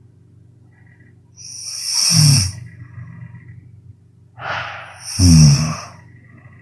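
A woman snoring loudly: two snores about three seconds apart, each swelling and dropping in pitch, with a breathy exhale just before the second.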